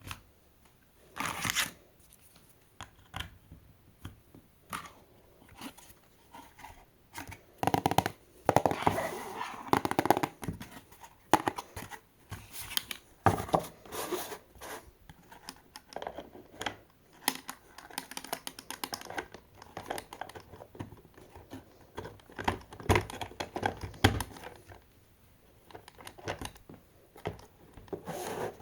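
Toy car packaging being opened by hand: tearing and crinkling of cardboard and plastic, with scattered sharp clicks and taps. The longest stretch of crinkling comes about a third of the way in.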